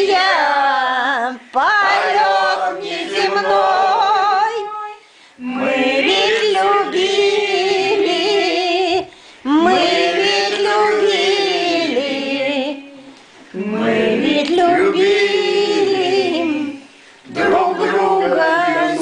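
Several men and women singing a song together without accompaniment, in phrases of a few seconds with brief pauses for breath between them.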